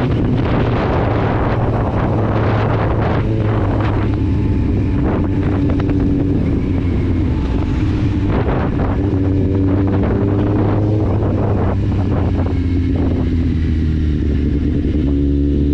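Kawasaki Z750's inline-four engine running through an Akrapovic exhaust with the dB killer removed, at a steady cruise with wind rushing over the microphone. The engine note drops a little as the bike slows, then starts to rise near the end as the rider accelerates.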